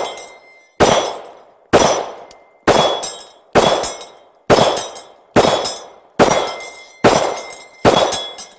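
Ruger MAX-9 9mm pistol fired in a steady string of nine shots, about one a second. Each shot is followed by a brief metallic ring as the bullet strikes the steel target.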